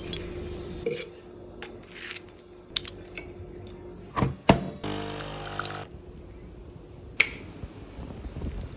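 Kitchen handling sounds while cooking: scattered sharp clicks and knocks, the loudest two about four and a half and seven seconds in, with a brief buzzing hum lasting about a second from about five seconds in.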